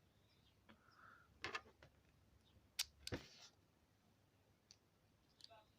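A few sharp plastic clicks and taps from a Beyblade top being handled, the loudest two about a second and a half apart, with a brief rustle after the second.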